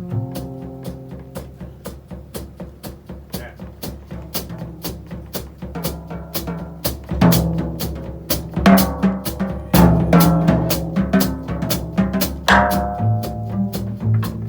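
Live jazz combo: a double bass carries on under a drum kit playing a busy run of snare and cymbal strokes, with four loud accented hits in the second half.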